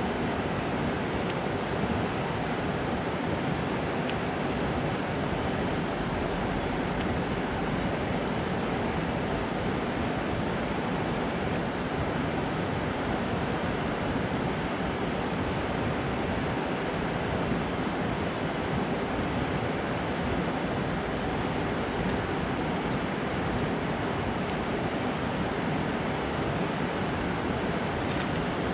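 Steady rush of water pouring over a concrete dam spillway and churning through the outflow channel below.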